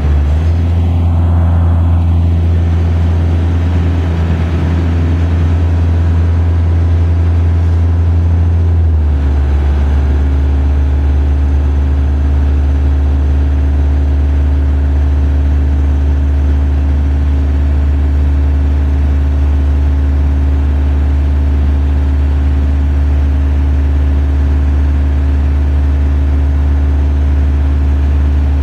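Engine of a JLG 660SJ telescopic boom lift running steadily while the lift is worked from its ground controls; its note shifts about nine seconds in, then holds steady.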